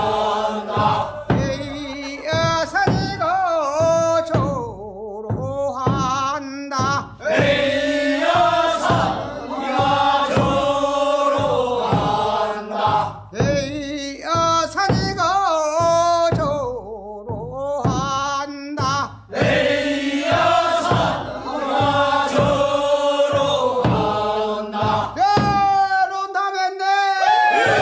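Korean rice-paddy weeding work song (non-maeneun sori) sung by a group of men, a single lead voice alternating with the group's chorus, over steady beats of a buk barrel drum.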